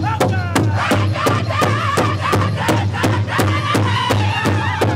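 Powwow drum group singing together while beating a large shared hide drum in a steady unison pulse of about three strokes a second.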